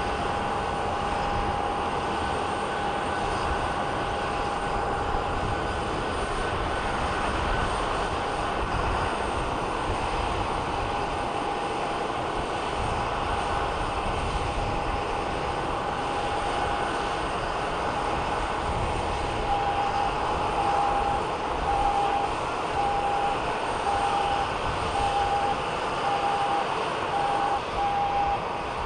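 Jet airliner running on the apron: a steady whine over a broad rumble. About two-thirds of the way in, a steady beeping starts, roughly once a second.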